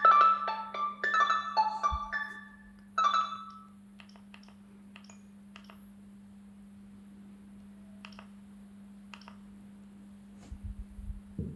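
Gigaset CL390 cordless phone playing a ringtone: a bright, chiming marimba-like melody that stops about two and a half seconds in, then one short final phrase around three seconds. After that come a few faint clicks over a steady low hum, and some low bumps near the end.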